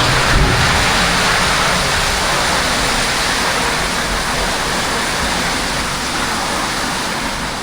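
Heavy downpour of rain: a steady, dense hiss that eases slightly toward the end.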